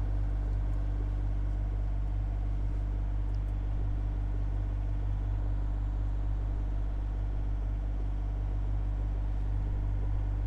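A sailboat's inboard engine running steadily while motoring at low speed, a continuous low drone that does not change in pitch or level.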